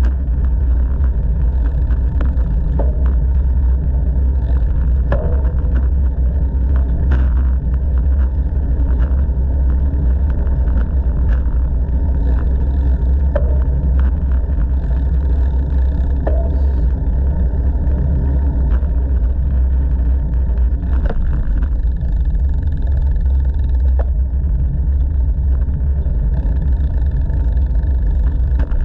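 Wind rumbling on the microphone of a moving bicycle's camera, mixed with the noise of bicycle tyres rolling over a paved path. The rumble is steady and loud, with scattered light clicks and knocks throughout.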